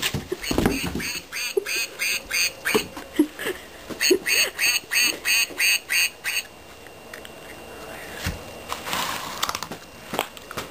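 Plush toy duck quacking over and over as a cat attacks it. The quacks come in quick runs of about three or four a second and stop about six seconds in.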